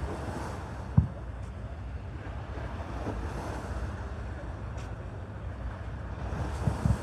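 Fireworks bursting: a sharp boom about a second in and two more close together near the end, over a steady low rumble of wind on the microphone.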